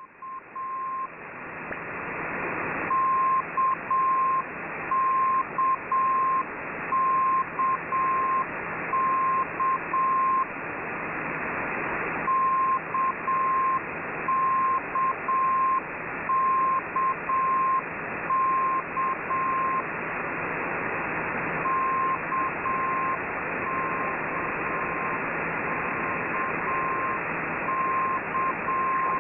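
Russian military single-letter propagation beacon heard through a shortwave receiver: one beep tone keyed in Morse code, sending the letter K (dash-dot-dash) over and over in runs of several seconds with short pauses between. Under it runs a constant hiss of radio band noise.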